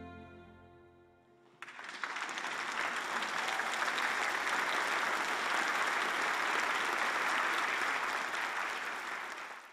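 The last held chord of a string orchestra fades away, then a large audience applauds, starting about one and a half seconds in. The applause cuts off suddenly just before the end.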